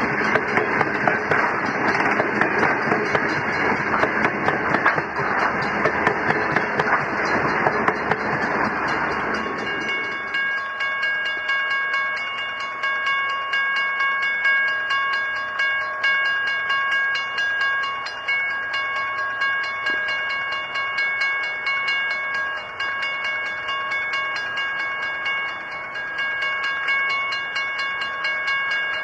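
Freight train's hopper wagons rolling past close by, wheels clicking and rumbling over the rail. About ten seconds in it changes to a quieter distant train approaching behind Pacific National diesel locomotives, with a steady high tone of several pitches together that breaks off now and then.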